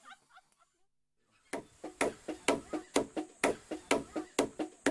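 Sago palm bark being stripped, making a rhythmic clapping knock about two times a second, starting about a second and a half in.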